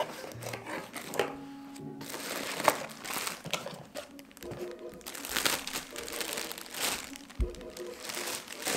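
Clear plastic wrapping crinkling irregularly as a plush toy is pulled out of its cardboard box and unwrapped.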